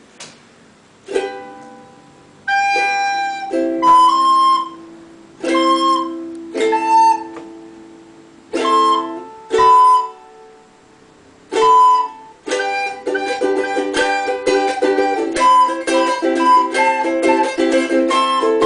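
A plucked string instrument playing single strummed chords, each left to ring and fade, one every second or two. About twelve seconds in, it changes to steady continuous strumming.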